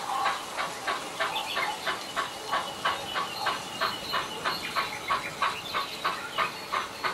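Sound decoder of a Bachmann 009 Baldwin model steam locomotive playing a steady steam exhaust chuff, about four beats a second, through its small onboard speaker as the loco runs with a goods train.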